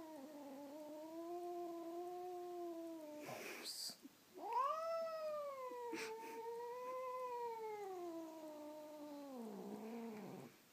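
Domestic cat yowling in two long, wavering drawn-out notes: the first is already under way and ends about three seconds in, the second starts after a short break and slides down in pitch at the end. It is the cat's 'singing', which the owner says only looks angry and is not.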